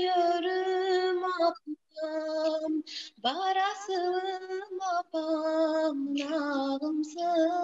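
A young woman singing solo and unaccompanied into a handheld microphone. She holds long, wavering notes in phrases broken by short pauses.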